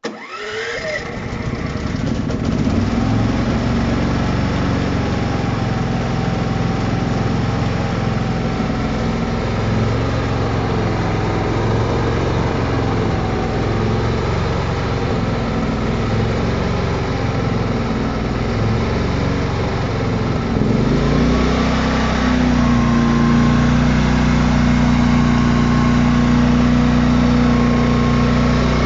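Geotech-Pro PTGA 9000 inverter generator's 459 cc four-stroke petrol engine starting on its electric starter, then running. Its pitch wavers gently at first, and about twenty seconds in it shifts and settles into a steadier, slightly louder note.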